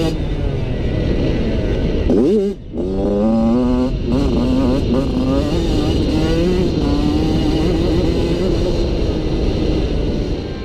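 Motocross bike engine heard onboard, revving hard on a dirt track. About two seconds in the revs climb sharply and then drop off for a moment, then pick up again and hold high and fairly steady.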